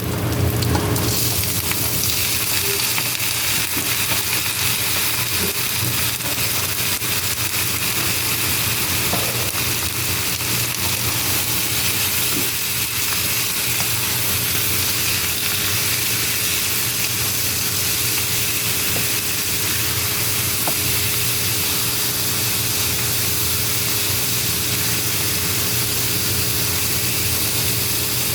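Pork pieces frying in hot oil with garlic and onion: a steady sizzle that jumps up about a second in as the meat takes the heat, then holds even.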